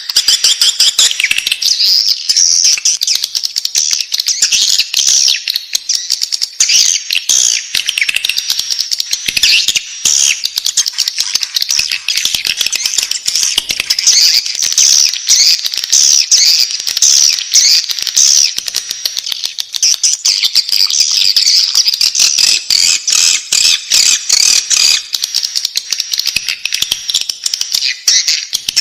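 Swiftlet chicks calling in the nest: a dense, unbroken high-pitched twittering of many rapid chirps.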